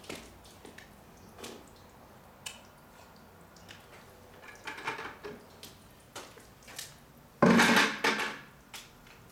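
Hand car wash with bucket and sponge: scattered small drips and wet clicks, then a loud wet slosh of water about seven and a half seconds in, fading over about a second, as the wash sponge is worked at the bucket.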